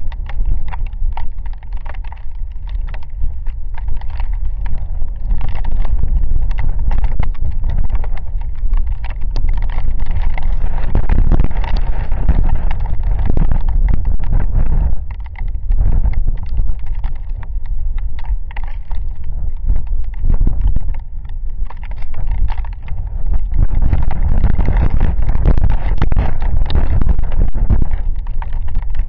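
Rainstorm: gusting wind buffeting the microphone, with many sharp ticks of raindrops striking close by. The gusts ease briefly a little over halfway through and again about two-thirds through, then pick up again.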